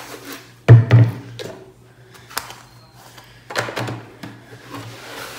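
Dull thumps of a plastic thermos flask being handled and set down on a stone countertop, with light cloth rubbing. Two thumps come close together about a second in, and two more near four seconds.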